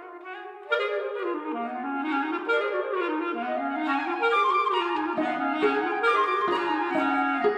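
A small instrumental ensemble playing a contemporary classical piece. Several melodic lines weave in quick moving notes, with a louder entry about three-quarters of a second in.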